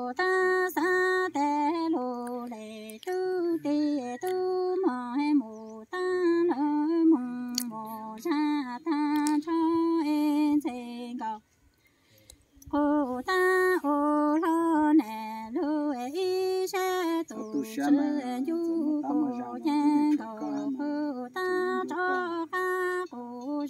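A woman's unaccompanied singing voice in a chanted style of Hmong sung poetry, holding long wavering notes and stepping between a few pitches. She stops for a breath a little before halfway, then carries on.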